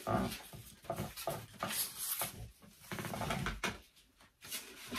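Crepe paper rustling and crinkling in irregular bursts as pieces are rummaged through and pulled from a stash, with a brief lull about four seconds in.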